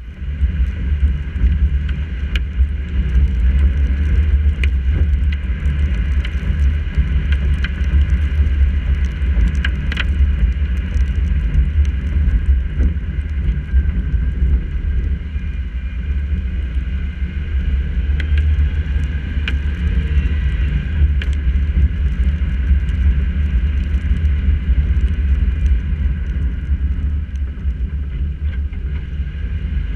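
A car driving on wet streets in the rain, heard from a GoPro on the hood: a steady low rumble of wind, tyres and engine, with scattered sharp ticks of raindrops hitting the camera.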